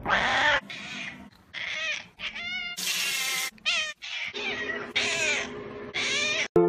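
Domestic cats meowing and yowling in a quick run of about ten short calls, some wavering in pitch and one rougher and harsher near the middle.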